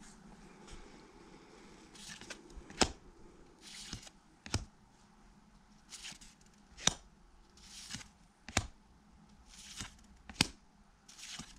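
A stack of 1991 Pacific football trading cards handled one card at a time: each card slides off the stack with a soft swish and lands with a sharp snap. This repeats five times, about every two seconds.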